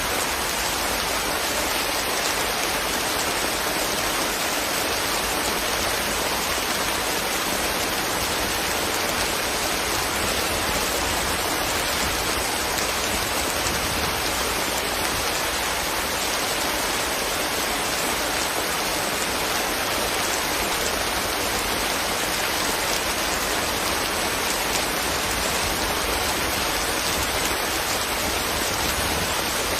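Steady rain falling, a dense even hiss of drops pattering on leaves and ground.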